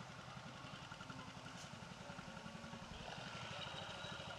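Motorcycle engine idling with a fast, even low beat; about three seconds in, a higher hiss joins it.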